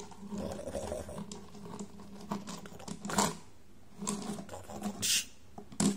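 A plastic toy boat being handled and set down on a wooden tabletop: a sharp knock about three seconds in, then a short scrape near the end.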